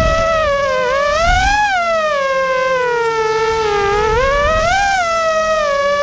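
Vortex 250 Pro racing quadcopter's brushless motors and propellers whining, the pitch rising and falling with the throttle: it climbs about a second and a half in, dips, climbs again near the end and then holds steady. Wind rumbles on the onboard microphone at the start.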